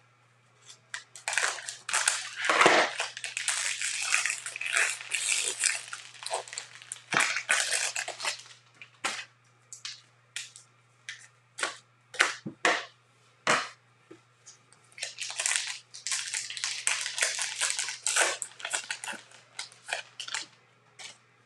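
Plastic wrapper of a Bowman baseball card value pack crinkling and tearing as it is cut open with scissors and unwrapped. A run of sharp clicks comes in the middle, then more crinkling near the end as the cards are pulled out.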